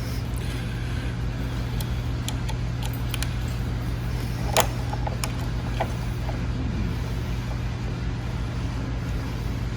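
Steady low hum with a few small sharp metal clicks of a hex (Allen) key working the handlebar perch bolts loose, the loudest click about halfway through.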